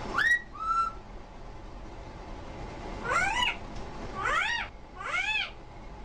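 A parrot calling: five short cries that rise and then fall in pitch. Two come close together at the start, and three come in the second half, about a second apart.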